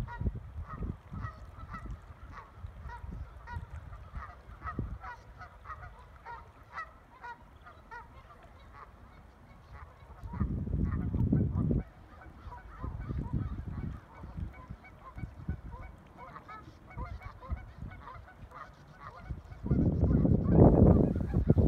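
Common goldeneye ducklings peeping, many short quick calls repeated over and over. A low rumbling noise swells twice, around the middle and near the end.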